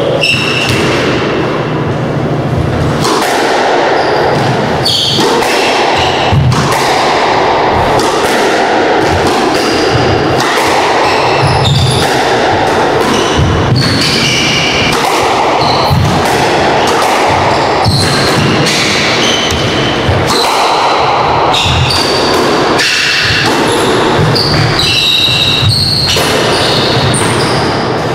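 Squash rally: the ball cracking off racket strings and thudding against the court walls again and again, with shoes squeaking in short high chirps on the hardwood floor.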